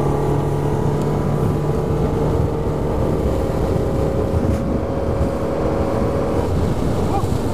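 A bass boat's Yamaha SHO 115 hp outboard motor running steadily at speed, a constant drone under the rush of wind and water.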